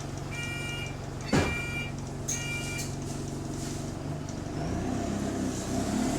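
Bus diesel engine running with an exhaust leak, its note rising about four and a half seconds in as it pulls away. Over it, a short multi-tone warning beep sounds four times about a second apart, with a single knock between the second and third beeps.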